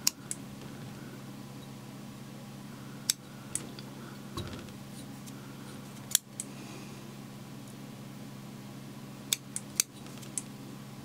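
Small fly-tying scissors snipping a spun reindeer-hair fly body, trimming it: about eleven short, sharp snips, a few at a time with pauses between, over a low steady hum.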